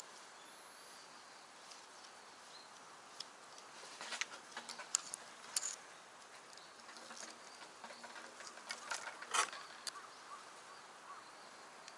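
Scattered light taps and scrapes on wooden boards over a faint steady hiss. They are busiest about four to six seconds in and again around nine seconds, where a short scrape is the loudest sound.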